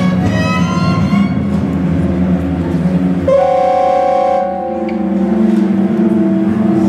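Live experimental music: a violin playing long held notes over a steady low drone. About three seconds in a strong new sustained note enters suddenly, then gives way to a lower held tone.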